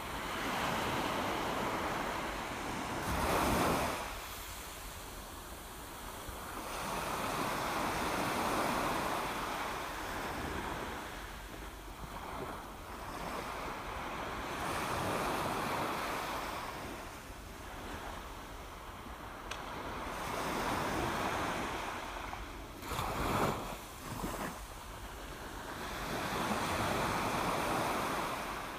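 Sea surf washing on a rocky shore, the noise swelling and fading about every six seconds, with two brief louder rushes, one a few seconds in and one later on.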